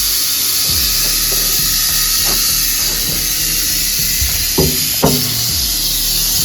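Rattlesnake rattling: a loud, steady high buzzing hiss, the warning rattle of a disturbed snake being handled. A couple of short knocks sound about four and a half and five seconds in.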